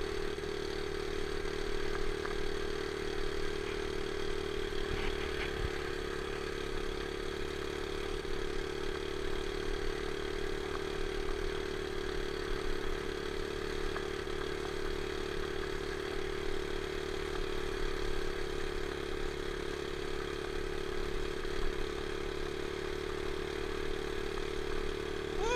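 Small single-cylinder four-stroke Honda dirt bike engine running under way at steady, unchanging revs, heard from the handlebars.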